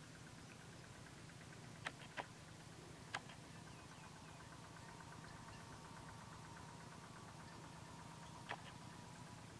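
Faint outdoor field ambience: a quiet steady hum under a faint, fast, even ticking, broken by four sharp clicks, three about two to three seconds in and one near the end.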